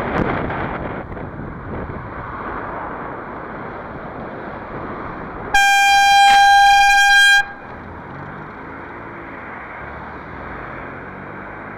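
A horn blasting one steady, high note for about two seconds, starting about five and a half seconds in: a warning to a car turning across the bike lane in front of the rider.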